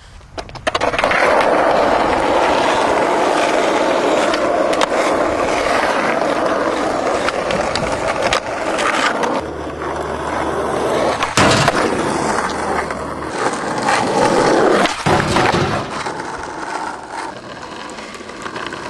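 Skateboard wheels rolling steadily, broken by several sharp knocks of the board striking, the loudest about eleven seconds in.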